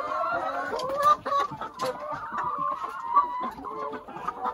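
A flock of laying hens clucking, many birds calling over one another at once.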